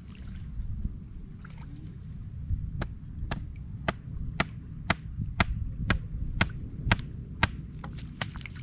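A steady low rumble of moving floodwater and wind. From about three seconds in comes a run of sharp, evenly spaced clicks, about two a second, coming faster near the end.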